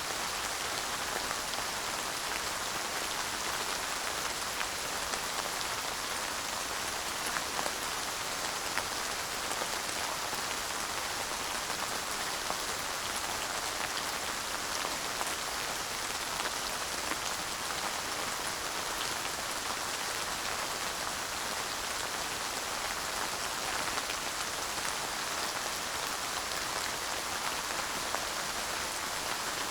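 Steady light rain falling, a dense even patter of raindrops with no thunder.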